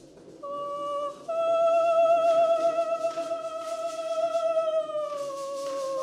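Opening of a song: a single slow melodic line, a short held note and then a longer, higher note with vibrato that slides gradually down in pitch about five seconds in, as a second line enters above it near the end.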